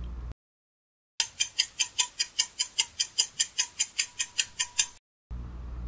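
Countdown-timer sound effect: a clock ticking quickly and evenly, about five to six ticks a second, for nearly four seconds. The ticks start after a moment of dead silence and stop abruptly.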